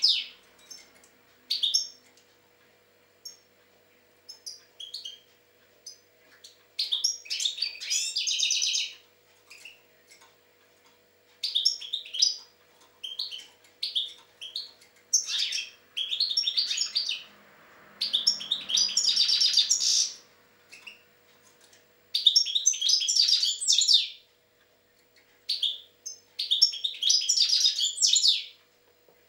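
European goldfinch singing: rapid, tinkling twittering phrases of up to about two seconds each, broken by short pauses and a few single call notes.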